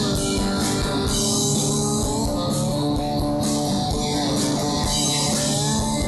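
Live rock band playing: electric and acoustic guitars over bass and a drum kit, with sustained, bending guitar notes and steady cymbal strokes.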